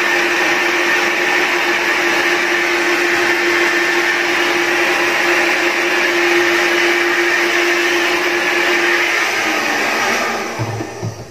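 Handheld electric hair dryer blowing steadily while drying a small dog's fur, a constant hum running under the air noise. Near the end it is switched off: the hum drops a little in pitch and the sound fades away.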